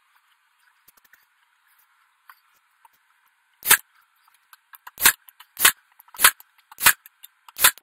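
Nail gun firing six times into a wooden screen door frame: one shot, then after a pause five more in quick succession, about one every 0.6 seconds.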